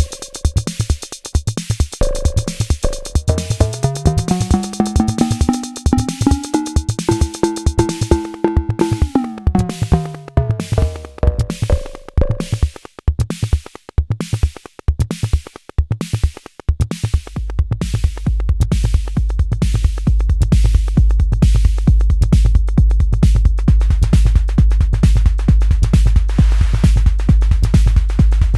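Arturia Drumbrute Impact analog drum machine playing a fast, dense beat. For the first dozen seconds a pitched tone glides up and back down over it. From about 17 seconds in, a heavy, steady bass drum pattern takes over the low end.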